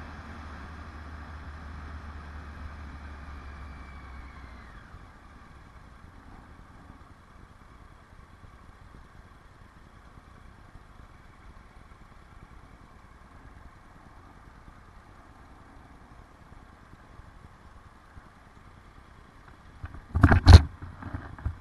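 Motorcycle engine running, its pitch falling as the bike slows to a stop about four to five seconds in, then idling quietly. A few loud knocks near the end.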